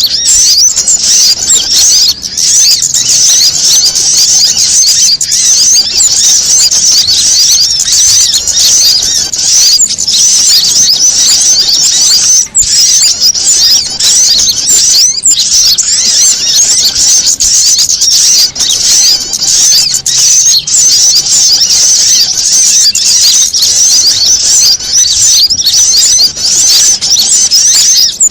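Bird-lure recording: a loud, dense, unbroken chatter of many small birds' high-pitched calls layered over one another, a frantic mix made to call wild small birds down.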